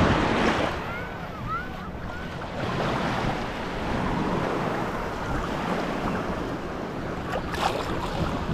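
Ocean surf with wind buffeting the microphone, a steady rushing noise that swells and eases. A few faint, high, squeaky chirps come early in the rush.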